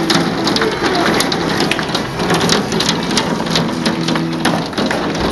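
Nickel-size hail falling hard in a storm: a really loud, dense, unbroken clatter of countless small impacts.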